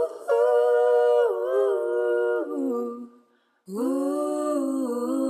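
Background song: a single voice humming a slow, wordless melody in long held notes, in two phrases with a brief gap near the middle.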